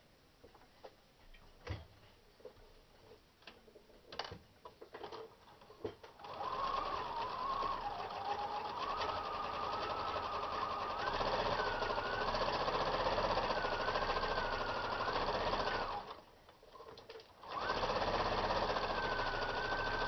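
Electric household sewing machine stitching through layers of cotton, muslin and batting, its motor whine wavering as the speed changes. It starts about six seconds in after a few faint clicks, stops briefly near the end, then runs again.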